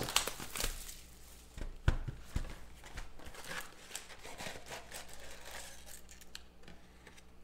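A sealed trading-card hobby box being torn open by hand: sharp cardboard tears and clicks, loudest about two seconds in. Then softer rustling and crinkling as the stack of wrapped card packs slides out of the box.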